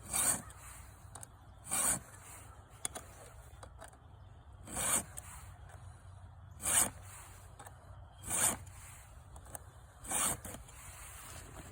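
Hand file stroking across the cutters of a Husqvarna Rancher 450's .325 semi-chisel saw chain: six slow, even rasping strokes, each about half a second long, a second and a half to three seconds apart, as the cutters are sharpened.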